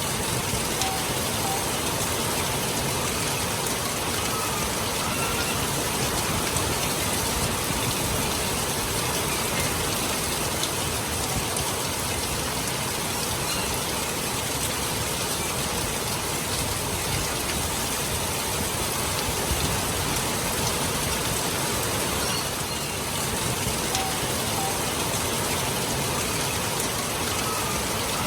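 Steady heavy rain falling, a constant even hiss.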